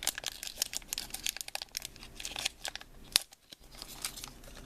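Foil Pokémon booster pack wrapper being torn open and crinkled by hand: a dense run of sharp crackles, with one louder snap a little after three seconds.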